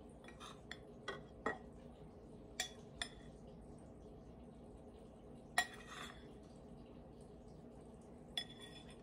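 A spoon clinking and scraping against a ceramic mixing bowl while flour mixture is spooned out of it: a scatter of light clinks and taps, the loudest about five and a half seconds in.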